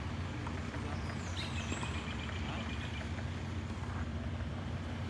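Steady outdoor background noise: a low rumble with scattered faint light taps, and a faint thin high tone about a second and a half in.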